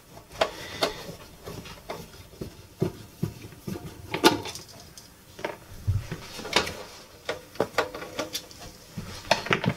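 Screwdriver undoing the screws of a hi-fi amplifier's metal cover, with irregular clicks and knocks as tools and the amplifier case are handled on the bench, the sharpest knock about four seconds in.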